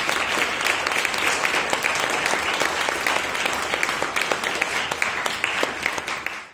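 An audience applauding: many hands clapping in a dense, steady patter that cuts off suddenly at the end.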